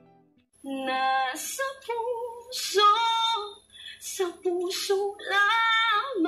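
A woman singing a slow Tagalog ballad solo, with no accompaniment. She comes in about half a second in and holds notes with vibrato near the end.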